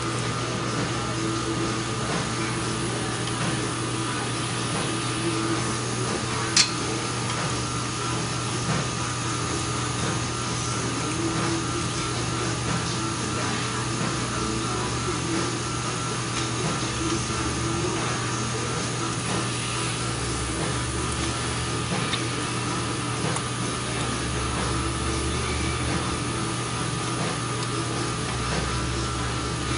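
Steady machine hum with a constant whine. One sharp click about six and a half seconds in, and a fainter one later on.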